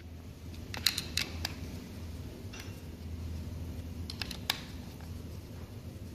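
Short sharp metal clicks and taps as a screwdriver and gloved hands work the guide of a DCS CM4 handheld tool: a cluster of clicks about a second in, a single click near the middle and a few more after four seconds, over a low steady hum.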